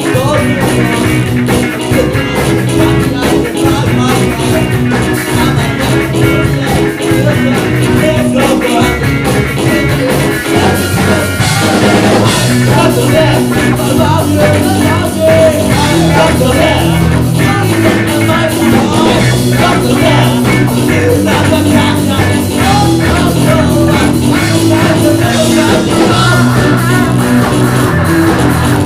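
Live rock band playing a fast, upbeat song on electric guitar, bass and drum kit, with a singer.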